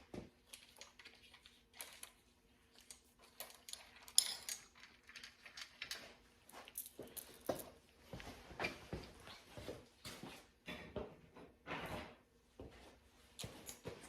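Scattered metal clicks, clinks and knocks of engine parts and tools being handled during timing-chain removal, with one sharp click about four seconds in, over a faint steady hum.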